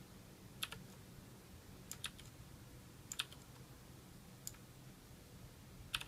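Cherry MX Blue mechanical key switches on a Ducky Shine 3 tenkeyless keyboard clicking faintly as keys are pressed, about five presses a second or so apart, several heard as a quick double click.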